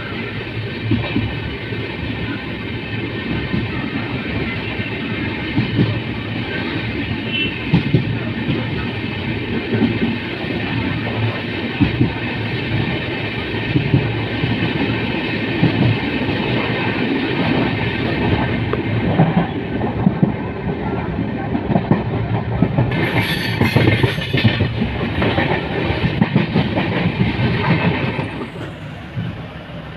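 Express passenger train running along the track, heard from on board. A brief hissing rush comes about three-quarters of the way through, and the sound eases off near the end.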